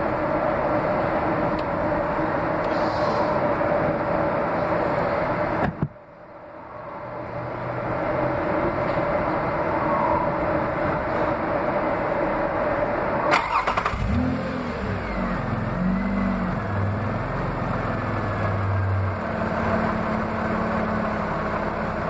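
A steady mechanical hum cuts off abruptly about six seconds in. About thirteen seconds in there is a click, then the Toyota 2GR-FE 3.5-litre V6 cranks, catches and settles into a steady idle.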